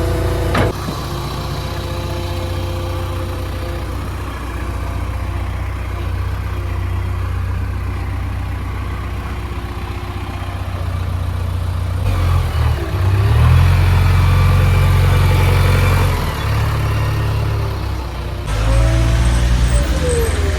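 JCB 3DX backhoe loader's diesel engine running steadily, then revving up about twelve seconds in and again near the end, with a faint whine rising and falling over it.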